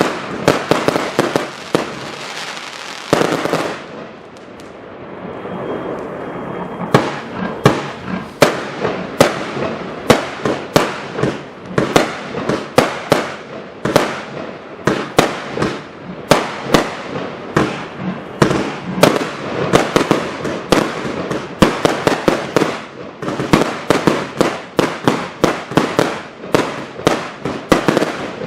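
A 320-shot firework cake firing in rapid succession: a steady stream of sharp bangs several a second, easing into a softer crackle for a few seconds about three seconds in, then back to fast volleys of bangs.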